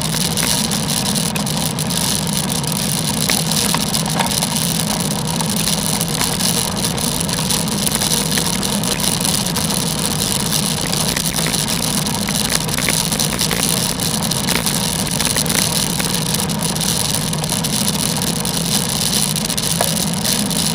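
Steady road and wind noise of a bicycle ride on wet roads, picked up by a bike-mounted action camera, with a few faint ticks.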